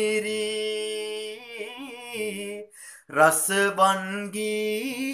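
A man singing a Sinhala song unaccompanied, holding a long wavering note, then pausing for breath just before three seconds in and starting a new phrase.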